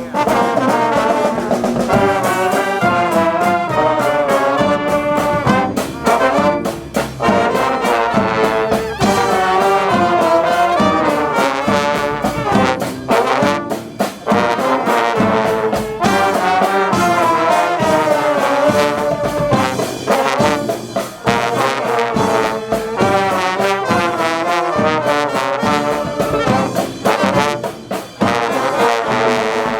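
Brass marching band playing live: trumpets, trombones and sousaphone with drums, the horns carrying a busy melody. The playing drops away near the end.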